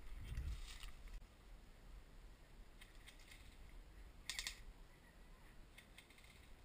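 Faint scattered clicks and rustles of dry brush and twigs as a person moves through undergrowth, with a brief crackling cluster about four seconds in.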